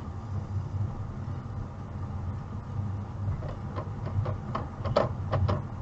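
Low, steady running hum of a car moving slowly, heard from inside the cabin. In the last two seconds or so there are several short, irregular clicks.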